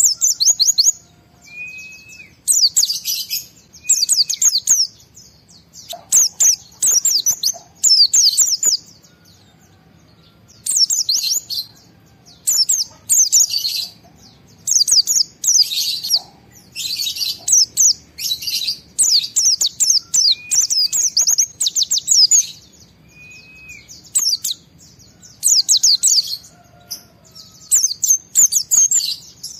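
White-eye (pleci) singing in the fast, agitated style: repeated bursts of rapid, very high chattering notes, each burst under a second long, with short pauses between them. A few lower, single arched call notes fall in the gaps.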